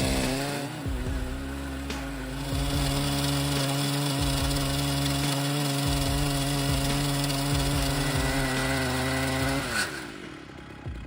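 Chainsaw engine running steadily at high speed as a frame-mounted chainsaw mill cuts a big log into slabs. Near the end its pitch falls and it goes quieter.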